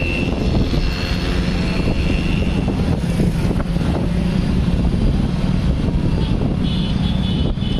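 Steady low rumble of a vehicle travelling along a road, engine and road noise with a faint steady hum.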